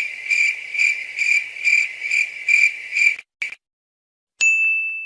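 Cricket chirping in an even rhythm of about two chirps a second, stopping about three seconds in. Near the end a short, high ding follows.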